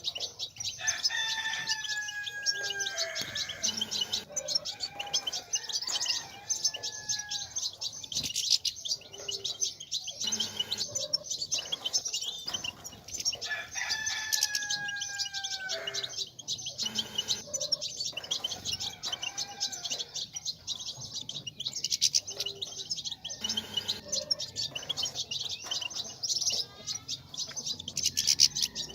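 European goldfinches twittering and chattering in a fast, continuous high-pitched stream. A lower, drawn-out call with a slight downward slide comes through three times, about every thirteen seconds.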